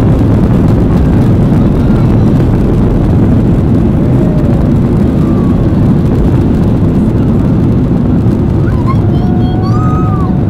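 A Boeing 737-800's CFM56-7B engines at takeoff power during the takeoff roll, heard from inside the cabin as a loud, steady, deep rush of noise.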